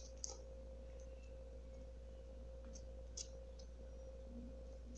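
A faint steady tone at one pitch over a low hum, with a few soft sticky clicks as slime is worked in the hands.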